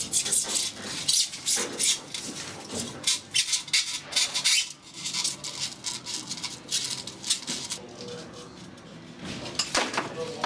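Electrical cable being pressed by gloved hands into a groove cut in an EPS foam ICF wall: a fast, irregular run of short rubbing and scraping strokes, foam against cable and glove.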